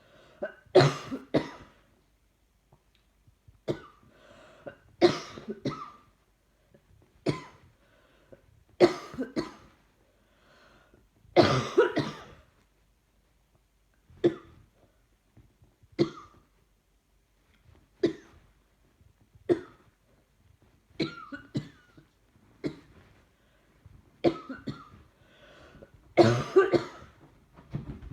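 A person coughing again and again from a chest infection: about twenty short, sharp coughs in single and double bouts every second or two, with brief pauses between.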